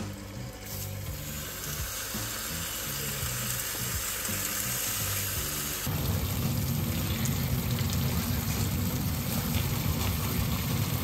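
Thin slices of pork sizzling in hot oil in frying pans, louder from about six seconds in.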